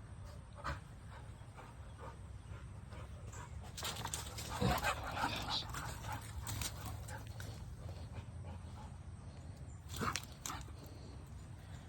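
A dog whining and giving short excited yelps while hunting, busiest about four to six seconds in, with a brief sharp burst near ten seconds.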